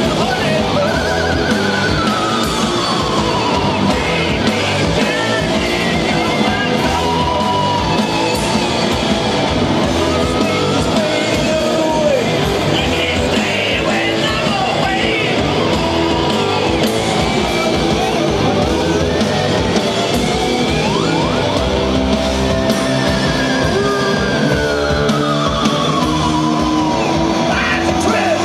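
Live psychedelic rock band playing loud, with distorted electric guitars and drums, and long high notes that slide down and up in pitch.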